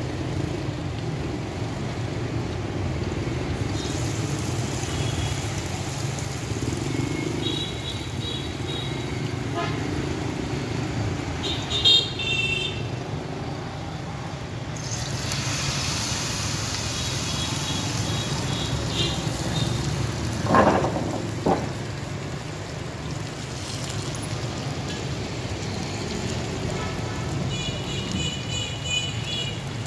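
Busy street traffic: a steady rumble of motorbikes and cars with short horn toots several times. About two-thirds of the way through there are two brief louder sounds.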